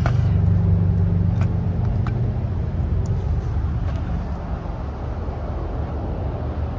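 A car engine idling steadily, with a few light clicks over it.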